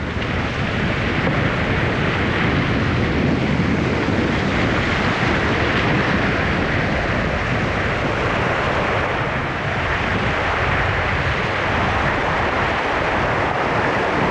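Wind buffeting the microphone over the steady rush of a shallow stream riffle pouring over stones, a constant noise without pauses.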